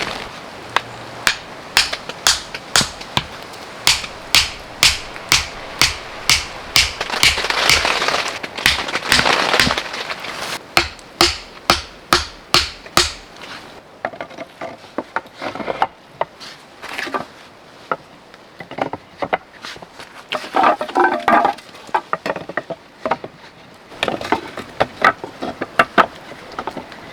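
Repeated sharp knocks, about two a second and evenly spaced for the first dozen seconds or so, then sparser and uneven.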